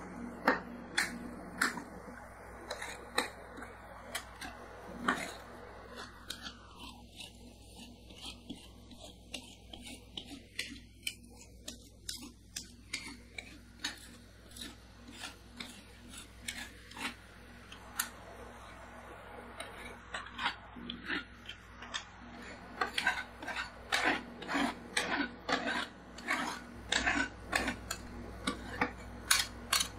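Metal scrapers scraping and tapping across the steel cold plate of a rolled-ice-cream pan, spreading a thin layer of ice cream mixed with crushed cookies flat as it freezes. The scrapes come faster and louder in the last several seconds.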